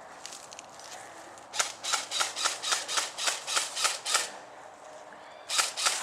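Airsoft rifle firing a rapid string of semi-automatic shots, about ten sharp pops at roughly four a second, then after a short pause a second string begins near the end.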